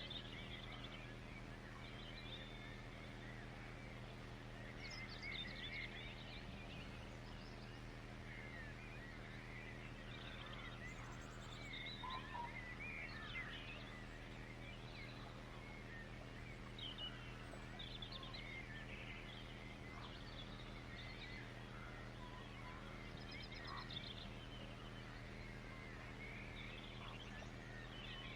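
A chorus of small birds chirping and twittering, many short calls overlapping, faint, over a steady low hum.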